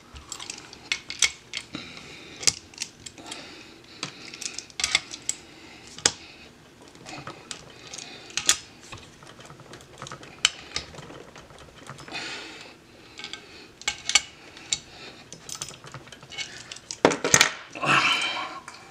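Irregular metal clicks and clinks of a sight pusher tool being worked on a Smith & Wesson M&P Shield pistol slide, with a louder clatter near the end as the tool and slide are picked up.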